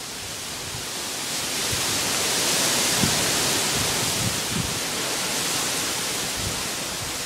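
Strong wind gusting through palm trees, a steady rushing hiss of fronds and leaves that swells about a second in and eases slightly toward the end.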